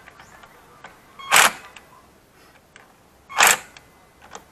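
A 20-volt cordless drill run in two short bursts, about a second and a half and three and a half seconds in, driving the clutch spring bolts into a motorcycle clutch pressure plate.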